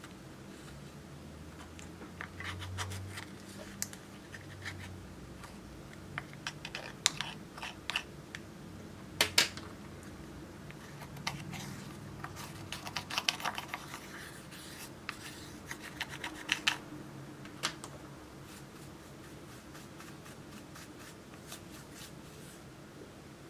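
Pressed powder blush being scraped and crumbled in its plastic compact with the tip of a pair of scissors and a stick: an uneven run of scratches and sharp clicks that dies away in the last few seconds.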